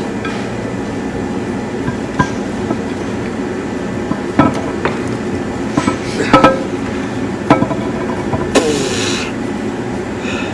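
Scattered sharp metallic knocks and clinks of tools and heavy parts being worked on a truck engine's flywheel area, over a steady low drone. About eight and a half seconds in comes a short burst of noise lasting about half a second.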